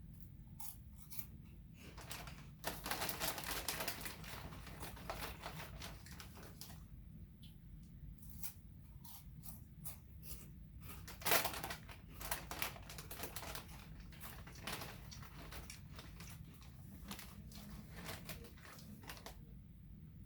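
Someone crunching and chewing oven-baked barbecue potato chips close to the microphone, with the chip bag crinkling. A dense run of crackling a few seconds in, and one sharp, loud crunch about eleven seconds in.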